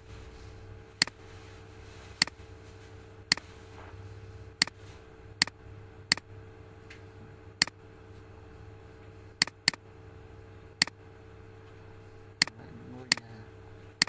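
Computer mouse button clicking about a dozen times at uneven intervals, sharp single clicks with two in quick succession near the ten-second mark, over a steady low electrical hum.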